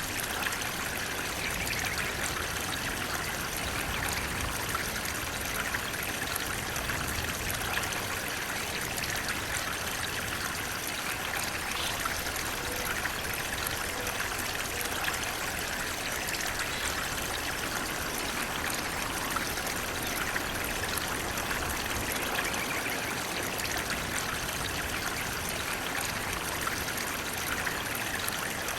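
Flowing water splashing steadily: an even, continuous rush of water, brightest in its mid-to-high hiss, with no breaks or changes.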